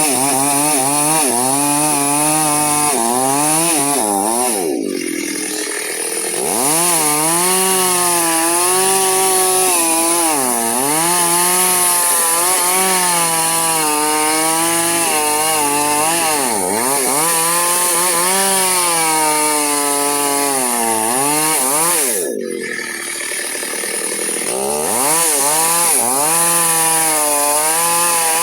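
Chainsaw cutting through a sengon log, its engine speed wavering under load. The engine drops off twice and then revs back up.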